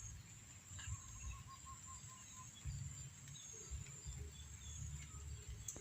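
Outdoor ambience: a steady high-pitched insect drone with scattered bird calls, including a quick run of short notes about a second in, over low buffeting on the microphone.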